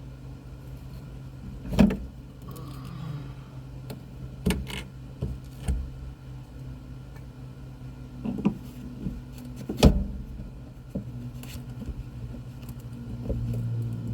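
Scattered knocks and clanks from handling tools and interior panels during van interior disassembly, two of them much sharper than the rest, over a steady low hum.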